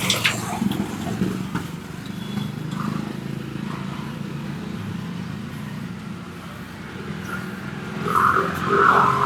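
Road traffic running steadily as a low engine rumble, with a few sharp clicks at the start and a louder brief sound near the end.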